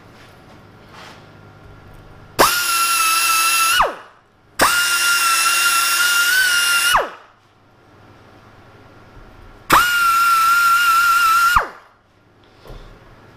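Pneumatic die grinder with a flap wheel, run in three loud bursts of about one and a half to two and a half seconds: a steady high whine that drops in pitch as each burst ends and the wheel spins down. It is polishing hard spots of weld inside a cast iron bore so a bushing will fit.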